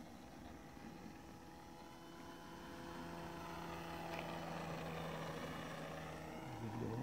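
Faint whine of an RC model plane's electric motor and 10x6 propeller in flight, growing louder as the plane comes closer. Near the end the pitch dips briefly and then rises again.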